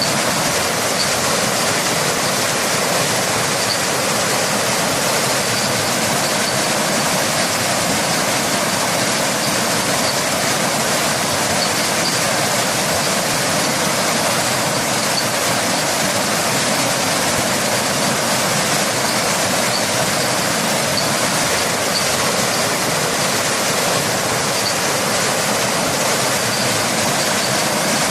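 Waterfall and rain: a steady, unbroken rush of falling water.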